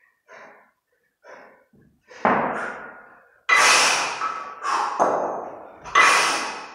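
Heavy breathing of a kettlebell lifter holding two 32 kg kettlebells in the rack position: short, quick breaths at first, then about two seconds in, four much louder forceful exhalations, each fading over about a second.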